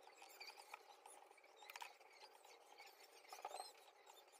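Near silence: faint high squeaky chirps and a couple of light clicks.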